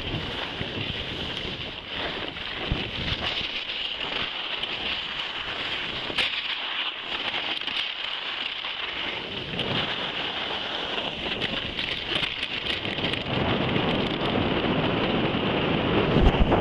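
Wind rushing over the microphone of a camera carried by a downhill skier, mixed with the hiss of skis sliding over packed snow; louder in the last few seconds.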